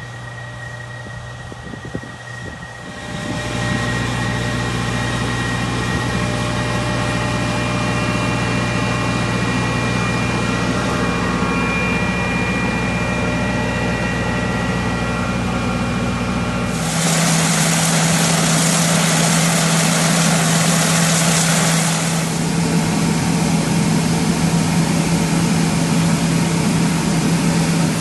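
Heavy military vehicle engine running steadily, with a high turbine-like whine over a low hum. The sound jumps abruptly louder about three seconds in and again about seventeen seconds in, with a brighter hiss after the second jump.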